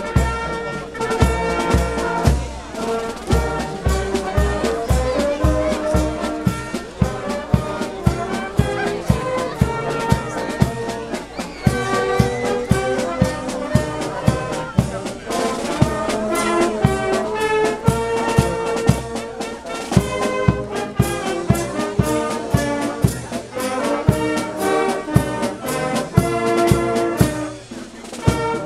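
A brass band playing a tune, with trumpets and trombones carrying the melody over a steady drum beat.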